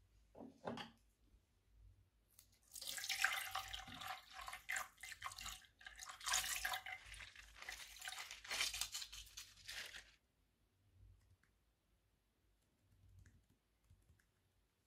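Water squeezed out of a torn water-filled squishy toy, streaming and splashing into a tray of foam-bead slime. It starts about three seconds in, runs for about seven seconds and stops suddenly.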